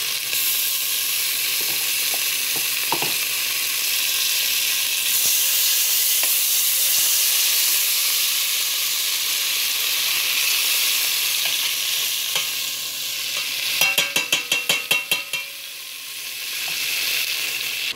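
Butter sizzling as it melts in a hot stainless-steel pot, a steady hiss. About 14 seconds in comes a quick run of about ten sharp taps lasting a second and a half.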